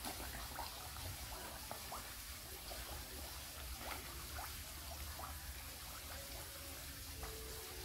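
Koi carp splashing and slurping at the pond surface as they crowd a hand held in the water: a scattered run of small wet smacks and splashes over a steady water trickle.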